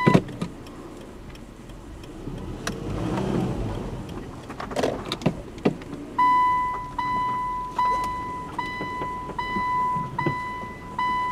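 Car's warning beeper: a steady high beep that stops just after the start, then some low rumble and a few knocks, then from about six seconds in long beeps repeating a little over once a second. This is the pattern of a reversing or parking-sensor alarm while the car is manoeuvred close to an edge or obstacle.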